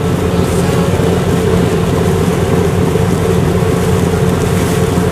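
Steady drone of a ship's engine with a rush of wind, heard on board a vessel crossing a harbour.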